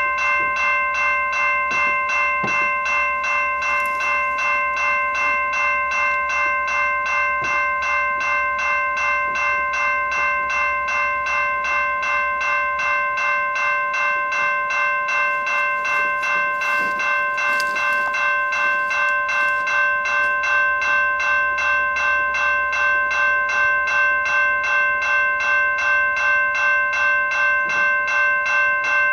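Railroad grade-crossing bell ringing in a steady, even rhythm of about two strokes a second. A freight train's locomotives draw up and start passing near the end.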